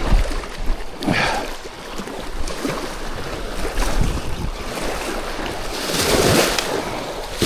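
Wind buffeting the microphone outdoors, a low rumbling noise that swells in gusts about a second in and again near six seconds.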